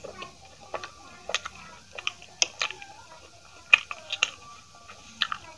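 Close-miked chewing of aloo paratha: irregular wet mouth clicks and lip smacks, one louder click a little past the middle.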